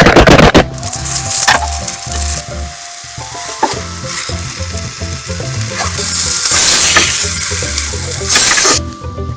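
Food stir-frying in a hot pan, loud sizzling that swells twice, with a few utensil clicks, over light background music.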